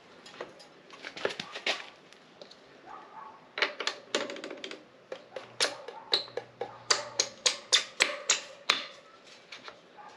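Irregular sharp metallic clicks and knocks of parts and tools as the bike's front wheel and axle bolt are fitted: a short cluster about a second in, then a longer run from about three and a half seconds that ends a second before the end.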